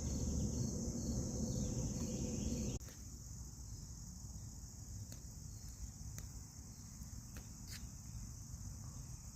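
Steady high-pitched chorus of crickets. A low rushing noise under it for the first three seconds cuts off suddenly, leaving the crickets and a few faint clicks.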